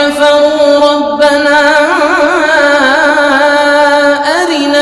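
A man reciting the Quran in the melodic mujawwad style, drawing out long held notes. The pitch holds steady at first, then wavers in quick ornaments in the middle and glides upward near the end.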